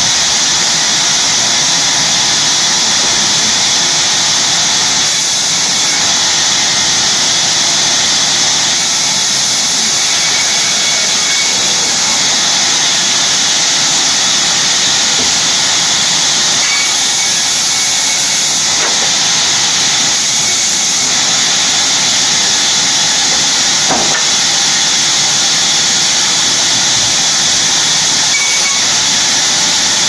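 Sawmill machinery running with a loud, steady hiss that does not pause or change.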